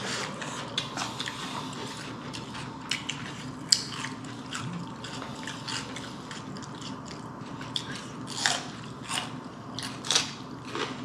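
Close-up eating sounds: a person biting and chewing chicken biryani, with many short, irregular clicks of the mouth and teeth.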